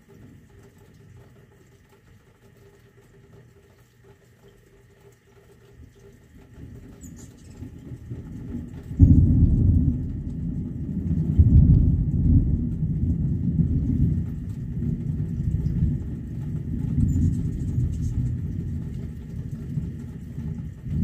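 Thunder: a low rumble builds over a few seconds, then breaks into a loud peal about nine seconds in and rolls on, swelling and fading in waves.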